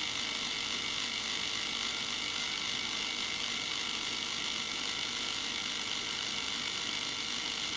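Battery-operated revolving bath brush running steadily: an even small-motor whir that holds unchanged throughout.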